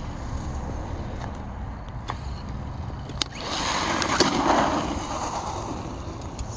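Redcat Volcano electric RC monster truck on a 4S battery driving over rough asphalt. Its tyre and drivetrain noise swells about halfway through and then fades, with a few sharp clicks along the way.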